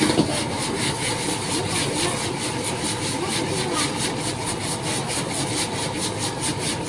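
Noodles being stir-fried in a wok over a gas burner: a metal ladle and spatula scrape and strike the wok in a quick even rhythm, about five strokes a second, over the steady rush of the burner and the sizzle of the food.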